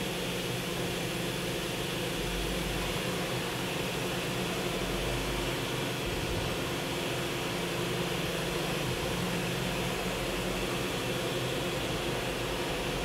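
Kia HC800 horizontal machining center running with a steady mechanical hum. A deeper low hum comes and goes several times as the axis drives move the spindle head along its travels.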